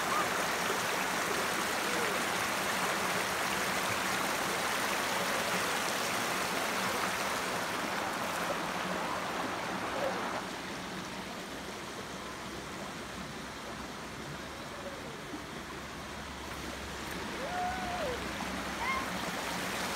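Shallow creek running over rocks, a steady rush of water that drops to a softer level about halfway through.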